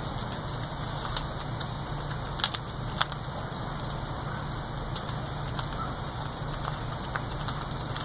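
A burning house fire: a steady rushing noise with scattered sharp pops and cracks from the burning structure, the loudest about two and a half and three seconds in.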